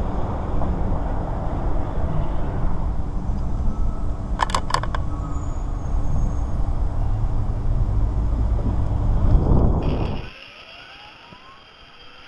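Loud rushing wind and ride noise, with a faint steady hum and two brief high tones about four and a half seconds in. About ten seconds in it cuts off abruptly to a much quieter scene where the 48-volt electric motorcycle's motor whines faintly, rising in pitch as it accelerates.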